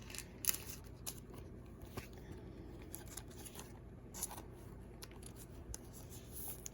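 Faint rustling and a few light clicks of trading cards being handled and set down, over a low steady hum.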